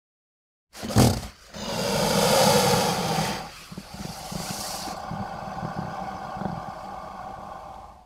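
Alligator snort: one short, sharp burst about a second in, then a long, loud hissing breath, then a quieter steady breath that cuts off abruptly near the end.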